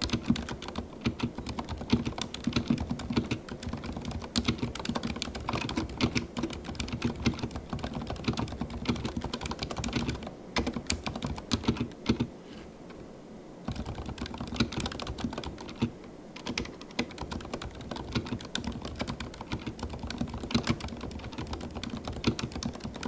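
Leopold FC900RBT MX2A full-size mechanical keyboard with Cherry MX2A silent red switches being typed on fast, a steady run of keystroke clicks that pauses briefly about halfway through.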